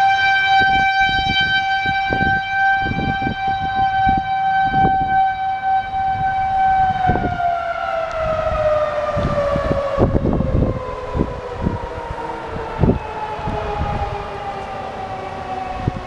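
Civil defense tornado warning siren sounding a steady tone with many overtones for about seven seconds, then slowly falling in pitch as it winds down. Irregular low thumps run underneath.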